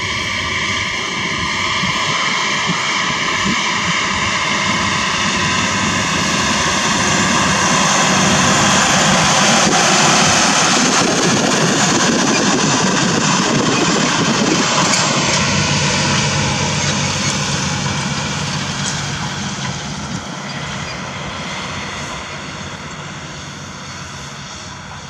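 Case IH Quadtrac 620 tracked tractor's diesel engine running under load as it pulls tillage implements past, growing louder to a peak about ten seconds in, then fading as it moves away.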